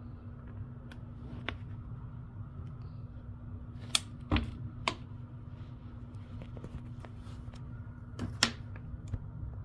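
A few sharp clicks and knocks over a steady low hum. The loudest comes about four seconds in and is followed by two more within a second, then a close pair near the end.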